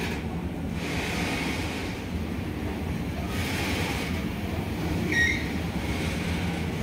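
Indian Railways goods train's loaded freight wagons rolling past at low speed: a steady rumble of wheels on rail with a rising and fading hiss, and a brief high-pitched wheel squeal about five seconds in.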